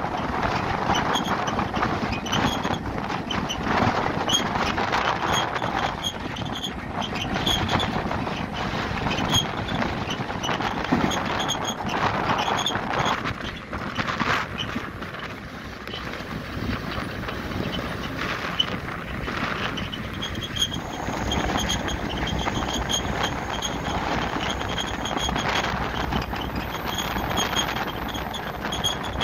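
Freight train rolling along the track, heard from the roof of a boxcar: a steady, noisy rumble of the moving cars with frequent knocks and rattles.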